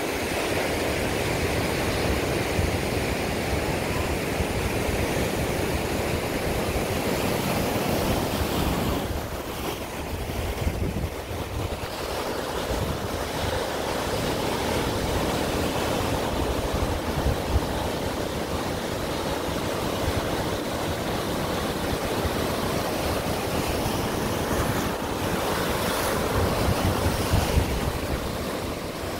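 Ocean surf breaking and washing over the shore and rocks in a steady wash of noise, with wind rumbling on the microphone.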